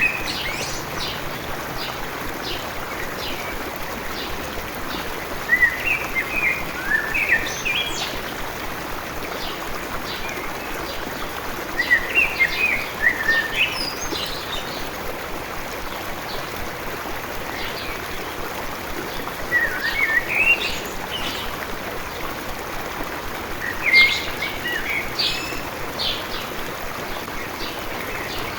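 A songbird sings short phrases of quick chirps and whistled notes, repeated every five to seven seconds, over the steady rush of a flowing stream.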